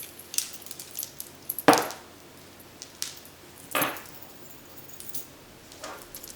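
Heavy metal-piece necklace being handled: scattered small clinks of the metal pieces knocking together, with two louder clacks, the first nearly two seconds in and the second about two seconds later.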